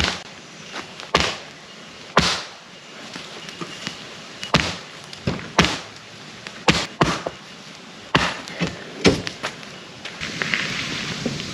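Firewood being chopped: about a dozen sharp, irregular chops, roughly a second apart.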